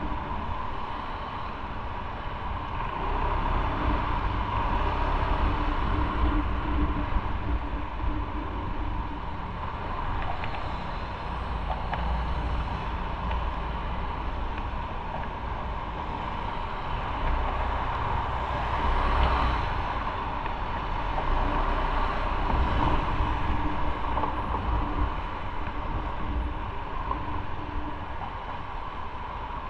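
Motorcycle running at low speed in slow city traffic: a steady engine hum mixed with road and traffic noise that swells and eases gently.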